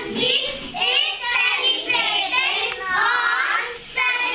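A class of young children singing together in short phrases.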